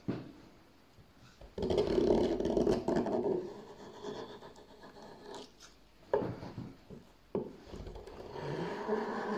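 Hand-forged swan neck gouge cutting curled shavings from a wooden board: a loud scraping cut about a second and a half in, two sharp knocks in the middle, then another scraping cut near the end.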